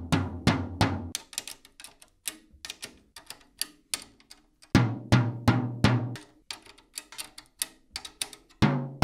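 10-inch tom's two-ply batter head tapped with a drumstick near each tuning lug in turn, about four strikes a second, to check that the tension is even while tuning it. Runs of strikes ring with a deep note near the start and again in the middle, with quieter, higher taps in between. The checking shows two lugs sitting too low.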